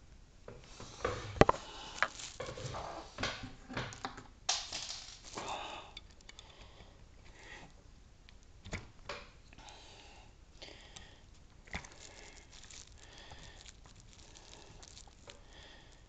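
Rustling and crinkling of a thin plastic strip being handled and pushed into a brass lock cylinder's keyway with a metal pick, mixed with sharp clicks. The busiest and loudest stretch is in the first six seconds, with one sharp click about a second and a half in; after that come scattered small clicks and rustles.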